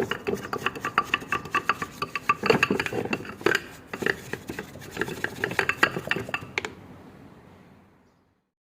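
Metal parts and tools clinking and rattling against one another in quick, irregular strikes with a ringing metallic tone, as starter-motor parts are handled on the bench. The clinking stops about seven seconds in and the sound fades out.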